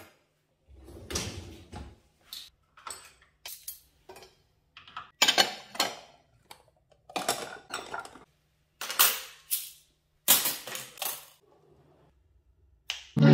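Ceramic dishes and metal cutlery clinking and clattering as they are taken out of a dishwasher rack and stacked into a drawer, in a series of separate short clatters with brief pauses between them.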